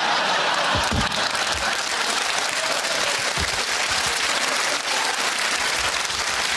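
Studio audience applauding, a dense, even clapping.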